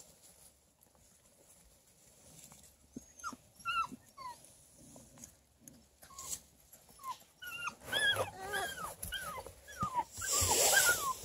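Six-week-old bluetick beagle puppies whining: a string of short, high whimpers that each drop in pitch, sparse at first and coming thick and fast in the second half. There is a brief rustle near the end.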